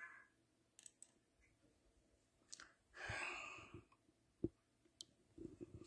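Near silence, with a few faint clicks and a soft breath-like hiss about three seconds in.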